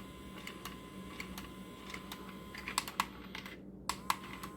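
Battery-powered UFO interactive cat toy whirring steadily as its motor drives it around, with irregular light clicks and taps from the toy's mechanism, a few sharper ones near the end.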